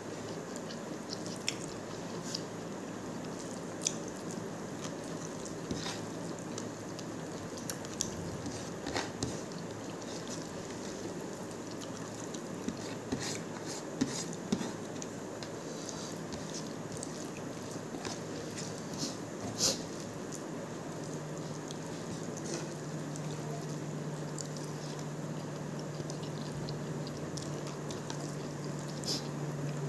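Close-up eating with bare hands: wet chewing and lip-smacking with scattered small clicks as fingers squish and mix rice and chicken chilli on a plate. A low steady hum comes in about two-thirds of the way through.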